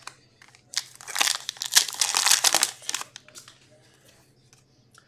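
A hockey card pack being torn open, its wrapper crinkling and crackling for about two seconds from about a second in.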